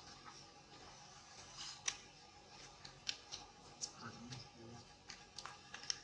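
Faint, irregular crackles and clicks of dry fallen leaves as a baby monkey moves over leaf-strewn ground.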